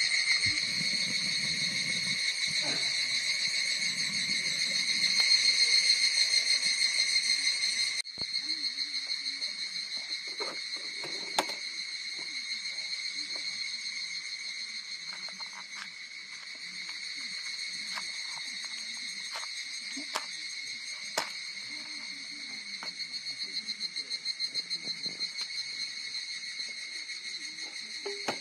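Insects chirring in a dense, steady chorus with a fast pulse, two high pitches held throughout. A few light clicks and taps sound now and then.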